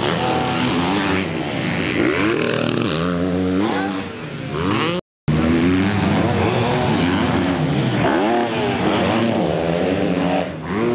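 Several motocross bikes racing on the track, their engines revving up and falling back again and again as they work through the gears. The sound cuts out completely for a moment about five seconds in.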